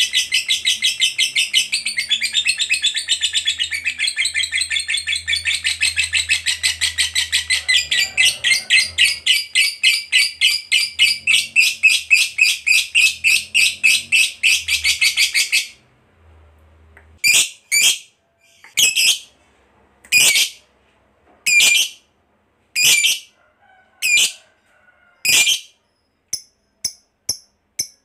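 Lovebird's long chattering trill ('ngekek panjang'): a fast run of shrill notes, about four or five a second, that goes on for some fifteen seconds and stops suddenly. Then comes a string of separate sharp calls about a second apart, and a few shorter, fainter chirps near the end.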